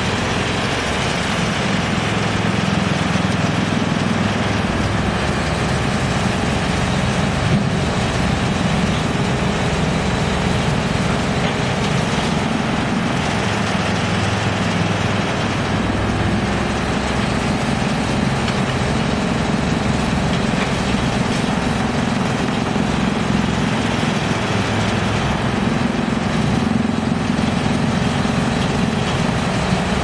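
A working wood chipper and an excavator running steadily together. The low engine note shifts a little every several seconds.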